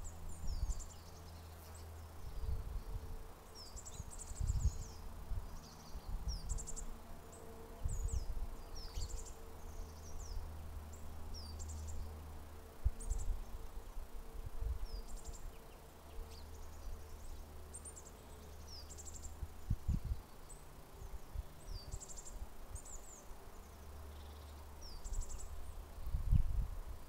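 Small woodland birds calling and singing, with many short high chirps scattered throughout. Underneath is a faint low hum that comes and goes, and a few brief low thumps.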